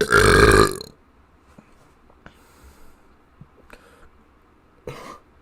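A person burping once, loudly: a rough, rattling belch just under a second long. A shorter, quieter sound follows near the end.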